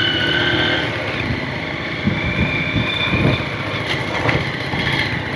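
Motorbike engine running while riding over a rough dirt-and-gravel track, with irregular knocks and rattles from the bumps.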